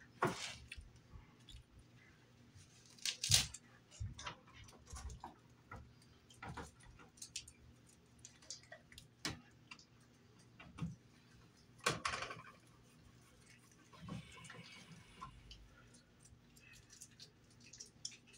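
Scattered small clicks, taps and scrapes of a screwdriver and wiring being worked into a wall-mounted electrical box, with a few louder knocks, the loudest about three seconds in and another about twelve seconds in.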